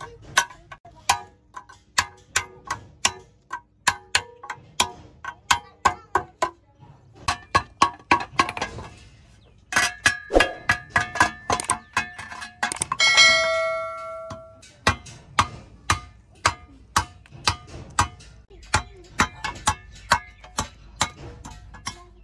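Hand hammer striking an iron hoe head on a block anvil while its wooden handle is fitted into the socket: a steady run of blows about two to three a second, each with a short metallic ring. About halfway through, a blow leaves a longer clear ring.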